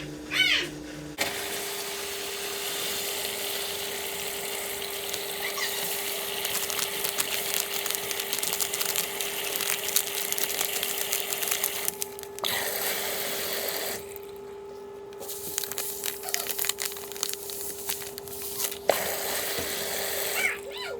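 Water running steadily with a constant hum under it; the rush drops away briefly twice in the second half.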